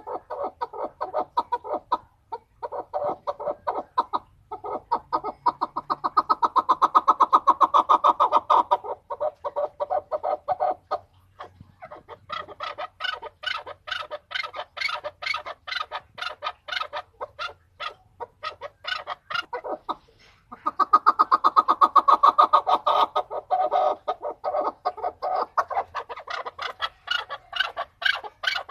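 Chukar partridge calling: a long run of rapid clucking notes that swells twice into louder, faster bouts, with a brief pause near the middle.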